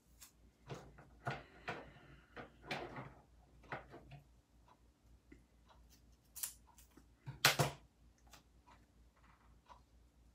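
Scattered light clicks and rustles of craft supplies being handled, with a louder rustle about seven and a half seconds in.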